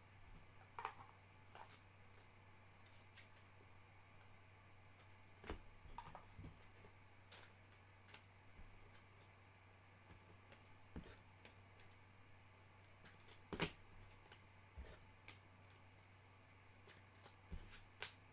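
Faint, scattered clicks and taps of trading cards being handled and sorted, over a low steady hum.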